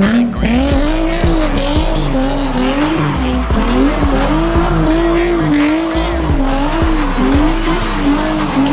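Car engine revving, its pitch climbing at the start and then swinging up and down over and over, with tire squeal, over background music.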